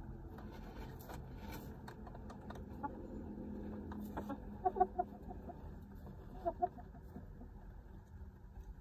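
Roosting hens settling for the night, making soft, low clucks. A low murmur runs through the first half, then come two quick runs of short clucks, about halfway through and again under two seconds later.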